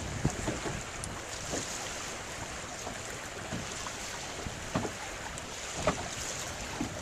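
Wind blowing on the microphone over choppy open water, with small waves knocking against the boat's hull a few times.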